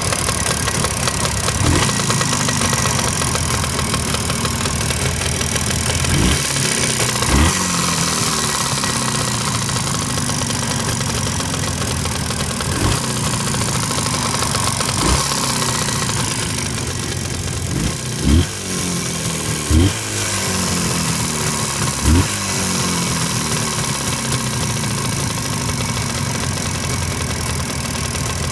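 Jawa 638 two-stroke twin motorcycle engine idling, with several short throttle blips, the sharpest about two-thirds of the way through. A knock runs through it that the owner cannot place, heard after a rebuild with cylinders bored to sixth oversize and a replaced crankshaft.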